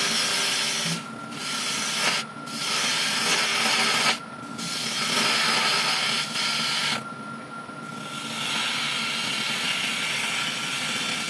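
Lathe gouge cutting a spinning monkey puzzle wood blank: a loud, rough hiss of shavings that breaks off briefly several times as the tool leaves the wood, with a longer break a little past the middle, over a thin steady whine from the running lathe.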